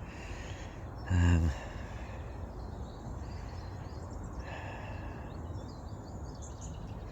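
Steady low outdoor background noise, with one short murmured sound from a man's voice about a second in.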